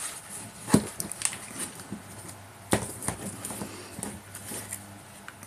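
Plastic action figure and sword being handled: scattered sharp clicks and knocks of hard plastic as the sword is worked into the figure's fist. The clearest come about a second in and about three seconds in.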